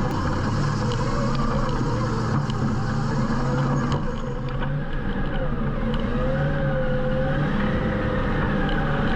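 Side-by-side UTV engine running steadily, its pitch wavering up and down with the throttle.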